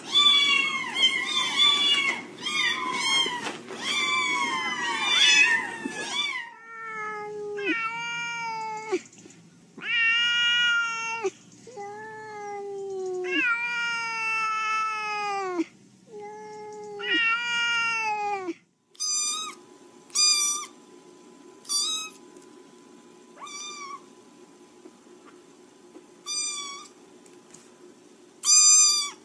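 Cats meowing in three abrupt changes of recording. First come rapid, overlapping meows. Then a run of about eight drawn-out meows, some over a second long. Last come about six short, high meows a second or two apart over a faint steady tone.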